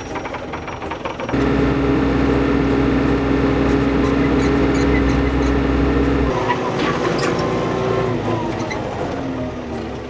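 Old tractor's engine running, heard from inside the cab. It turns louder and steady about a second in, drops back abruptly near the middle, and falls in pitch near the end as it slows.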